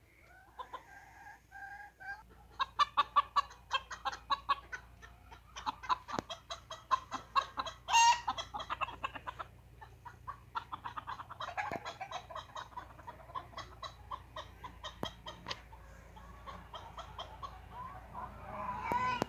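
Chickens clucking in long runs of rapid notes, with a rooster starting to crow near the end.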